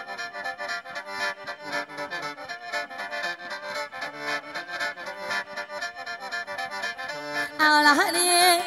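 Khaen, the Isan bamboo free-reed mouth organ, playing a fast rhythmic lam melody over a held drone. A singer's voice comes in loudly near the end.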